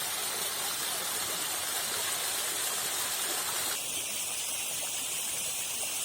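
Steady rush of rainwater pouring down a small waterfall. About four seconds in, the lower part of the sound drops away abruptly, leaving a thinner hiss.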